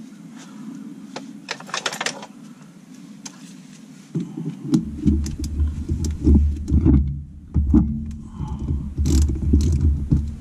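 Small metal bolts and washers clinking in a parts tray. About four seconds in, hand-tool work on a brake caliper begins: heavy, irregular low knocks and rubbing as the caliper assembly is handled, then a few sharp clicks of a ratchet wrench on its banjo bolt.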